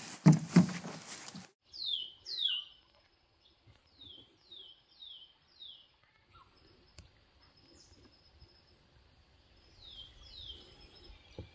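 Two heavy thumps in the first second. Then a bird calling with short chirps that each slide down in pitch, coming in runs of two to four, a few seconds apart.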